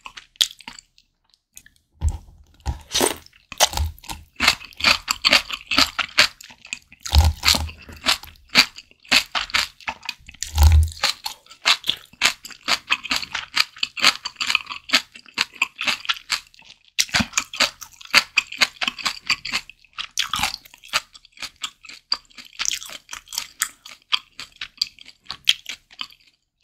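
Close-miked chewing of a mouthful of malatang: a dense run of small wet clicks and crunches, with a few brief pauses.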